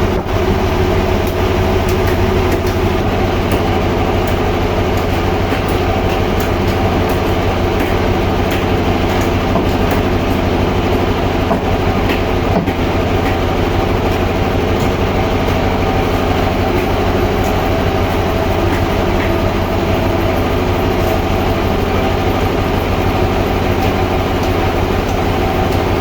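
Sawmill machinery running steadily: a loud, even mechanical drone with several steady tones underneath and faint scattered ticks.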